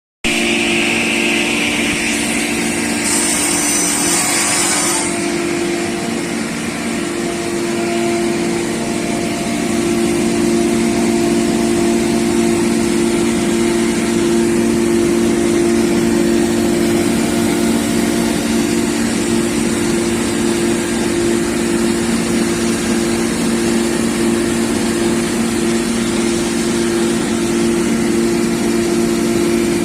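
F45 sliding table panel saw running with a steady machine hum, with a brief hiss in roughly the first five seconds.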